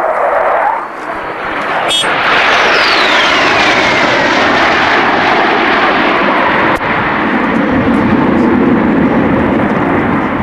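Military jet aircraft flying past low, its engine roar swelling about two seconds in, with a high whine that falls steadily in pitch as it goes by; the loud roar then carries on as it climbs away.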